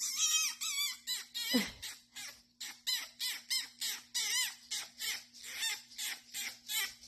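A pet fox chattering: a fast string of short, high chirping calls, about four to five a second, while it is being rubbed. A single lower call falls in pitch about a second and a half in.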